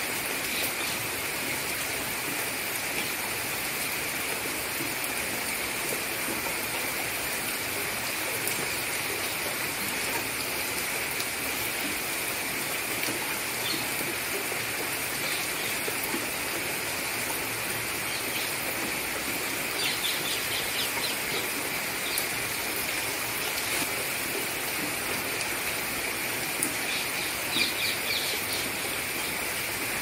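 Steady rain falling onto a pond's surface, an even hiss throughout. A bird calls twice in quick chirping trills, about two-thirds of the way through and again near the end.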